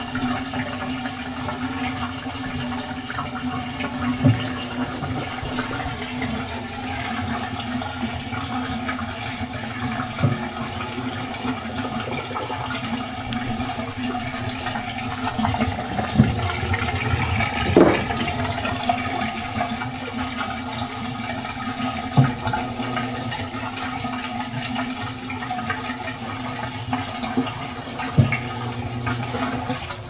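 AQUA AQW-GS70H top-loading washing machine at the start of its rinse stage: water rushing and sloshing in the tub over a steady motor hum, with a few short knocks every several seconds.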